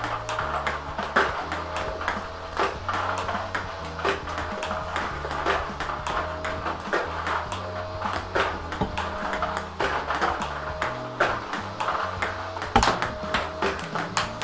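Table tennis ball repeatedly clicking off the racket and the table during continuous forehand rallying, over background music with a steady bass line.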